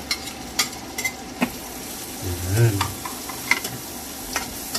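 Minced garlic sizzling in hot olive oil and butter in a frying pan as it is sautéed, with a spatula scraping and clicking against the pan several times while it is stirred.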